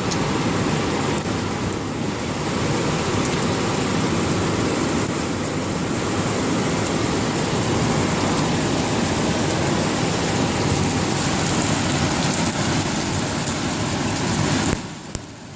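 Heavy rain falling steadily, an even rushing hiss that drops away suddenly near the end.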